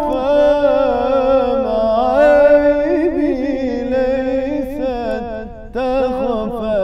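A man singing an Arabic nasheed, drawing out a single word in a long, wavering melismatic run, with a brief breath a little before the end.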